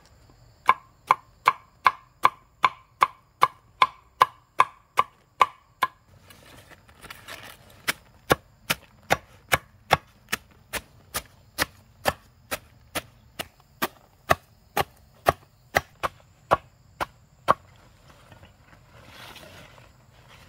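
Steady chopping: a blade striking a chopping surface about two and a half times a second, in two long runs with a brief pause around six seconds in. The strokes of the first run ring with a clear tone.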